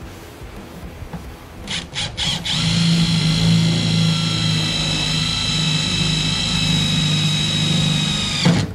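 Cordless drill pulsed briefly three times, then running steadily at one pitch for about six seconds, boring a quarter-inch hole through the truck's wheel-arch sheet metal; it stops suddenly near the end.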